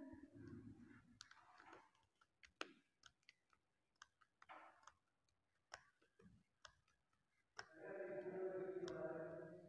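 Quiet room with scattered faint clicks and ticks. A faint voice is heard at the start, and another faint voice sounds for the last two seconds.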